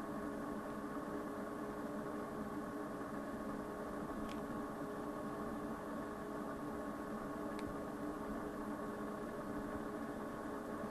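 Steady electrical hum from a running Tektronix oscilloscope, several steady tones over a soft hiss, with two faint ticks about four and seven and a half seconds in.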